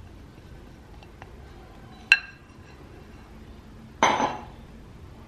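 A single sharp glass clink with a brief ring about two seconds in, as the glass bowl knocks against the metal mesh sieve. About four seconds in comes a louder short scraping rattle as the sieve is taken up from the ceramic bowl, fading within half a second.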